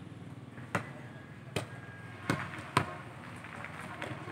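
A ball being struck or bouncing: four sharp, irregularly spaced thuds.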